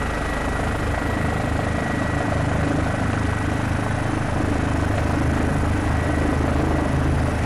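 Steady drone of a helicopter's rotor and turbine engine as heard inside the cabin, with a thin steady high tone running through it.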